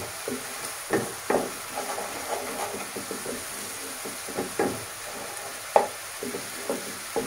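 Food frying in hot oil in a pan with a faint steady sizzle, while a spatula stirs and scrapes through it, knocking against the pan now and then, most sharply about a second in and again near the end.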